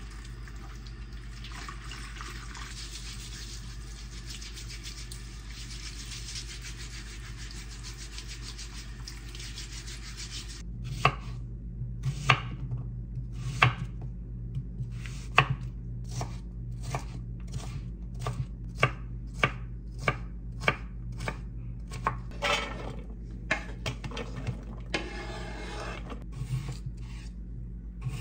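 Kitchen tap running into a plastic colander as vegetables are rinsed. About eleven seconds in, a chef's knife starts slicing an onion on a wooden cutting board, with irregular sharp knocks of the blade on the board, one or two a second. A steady low hum runs underneath.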